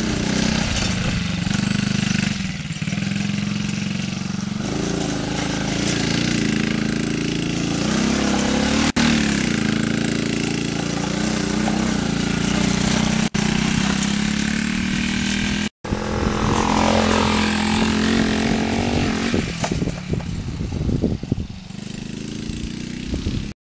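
Gio Spyder 70cc mini ATV's small single-cylinder engine running and revving up and down as it is ridden in tight circles on grass. Its pitch rises and falls repeatedly, and the engine is quieter and more uneven near the end.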